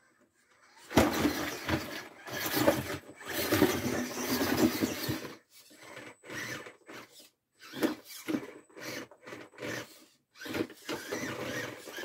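RGT 137300 V2 Bowler 1/10 scale electric RC crawler's motor and drivetrain running, with its tyres and chassis scraping and knocking on wooden boards as it climbs. One long stretch of driving is followed by a series of short bursts.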